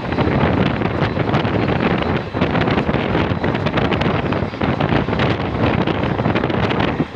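Wind buffeting the microphone: a loud, steady rush of noise with constant flutter.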